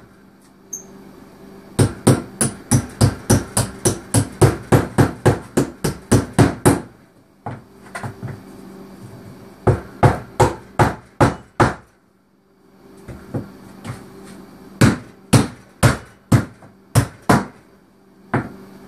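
Steel hammer striking a glued-up stack of plywood discs, a laminated wooden drive-wheel blank, in quick runs of blows about four a second. There is a long run near the start, a few scattered blows in the middle with a short lull, and another run near the end.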